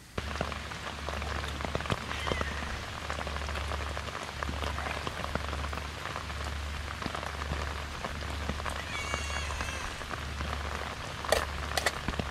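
Heavy rain falling steadily, with a dense patter of drops. A few sharp clicks come near the end.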